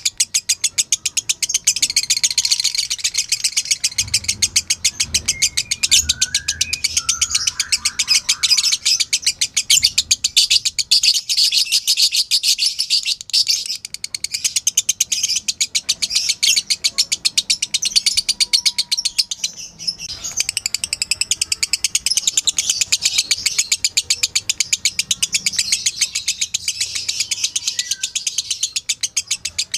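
Lovebird 'ngekek' song: a long, rapid, high-pitched chattering trill, broken briefly twice, about a third and two-thirds of the way through.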